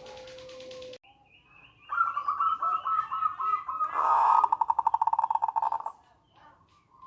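Zebra dove (perkutut) singing. A held low note comes first, then, after a short gap, a rapid string of short clipped coos that runs into a fast rattling trill and stops about six seconds in.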